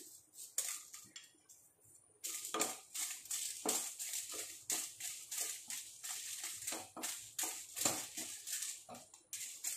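Dried Byadgi red chillies frying in ghee in a nonstick kadai, stirred with a wooden spatula: a quick run of scraping, rustling strokes with a light crackle, starting about two seconds in.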